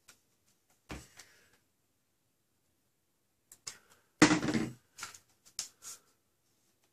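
Workbench handling noises: a soft knock about a second in, then a louder clatter just after four seconds as a screwdriver is set down on the table and the clear plastic blaster body is shifted, followed by a few light clicks.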